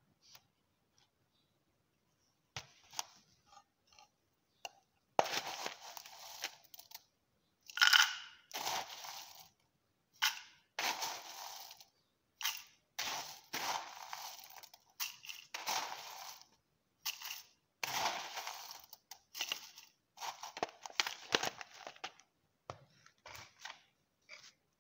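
A spoon scooping dry cardamom in plastic containers: about a dozen short, dry, crunchy scrapes, each about a second long, starting about five seconds in after a few faint clicks.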